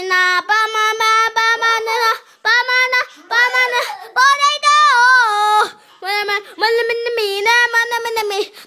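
A young boy singing close to the microphone: loud held notes in short phrases with brief breaks between them, the pitch wavering on a few notes.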